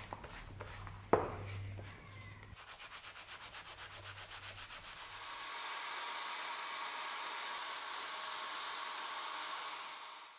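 Electric drill clamped in a vise spinning a stack of rings while abrasive is held against them: a steady motor whine under a sanding hiss, coming in about halfway through after a stretch of rhythmic rubbing. A sharp click sounds about a second in.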